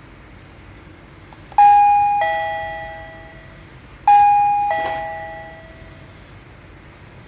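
Costar T300 wireless doorbell receiver chiming a two-tone ding-dong twice, about two and a half seconds apart. Each time a higher note is followed by a lower one, and both fade away. The push button, re-paired after a reset, is working again.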